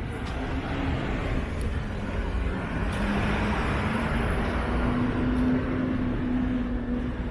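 Road traffic: a motor vehicle passing close, its rushing noise swelling to a peak past the middle, with a low hum that steps up in pitch.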